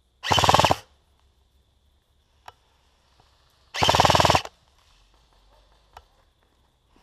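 HK416 airsoft rifle firing two short full-auto bursts, the first about half a second in and the second near the middle, each a rapid, even rattle of shots lasting well under a second.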